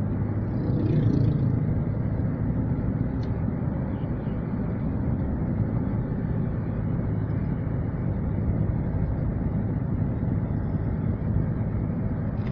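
Car driving along a road: a steady low rumble of engine and tyres, with a slight swell about a second in.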